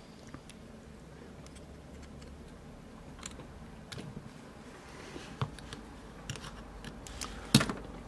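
Sparse small metallic clicks and scrapes of a retaining C-clip being pried off the end of a Litto MP83 euro cylinder lock with a metal tool. A sharper click near the end as the clip comes free.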